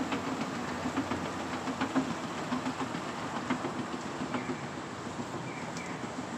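Hitachi escalator running, its moving steps giving a steady mechanical rumble with irregular light clicking and rattling. The clicks thin out and the sound eases a little from about four seconds in.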